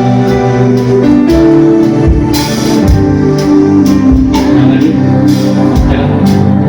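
Church band music: sustained keyboard chords that change every second or two, with drum hits through it.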